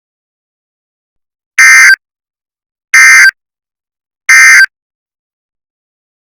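Three short, loud bursts of Emergency Alert System SAME data tones, the harsh digital warble of the header code, about a second apart. Coming right after the spoken warning, they are the end-of-message (EOM) code that closes the alert.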